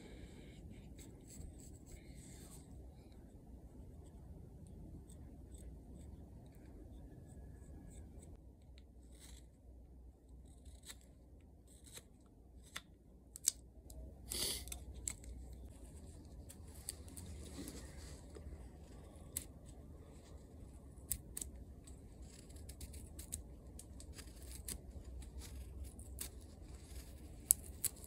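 Knife whittling a small wooden block by hand: short, crisp slicing clicks scattered throughout as the blade pares off shavings. About halfway there is a louder, brief rustle of paper being handled.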